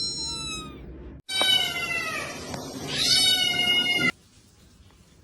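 Cat meowing: a meow tails off, then after a brief cut come two long meows falling in pitch, stopping about four seconds in.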